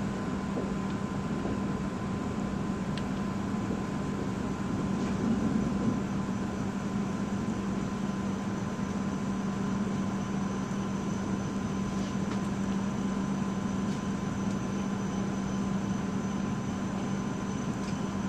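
Steady interior running noise of a Hokuriku Shinkansen train as it slows into a station: an even rumble and hiss with a steady low hum and a fainter high tone, and a slight swell about five seconds in.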